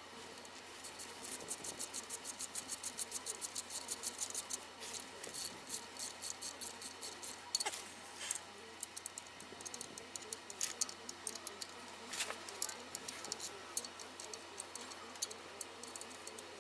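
Hand ratchet clicking as it runs in the oil pan bolts: a quick even run of about five clicks a second, then shorter runs and single clicks.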